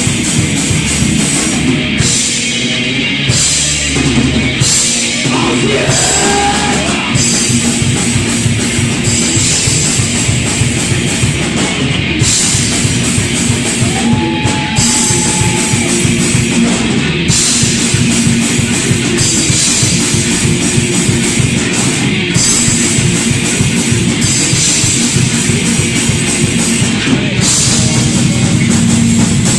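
Thrash metal band playing loudly: distorted electric guitars and bass over a fast, driving drum kit, with a couple of short guitar pitch bends.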